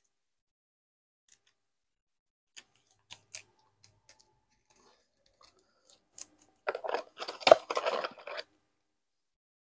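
Plastic crinkling while trading cards are handled: a few light clicks, then near the end about two seconds of dense crinkling and scratching with one sharper click in the middle.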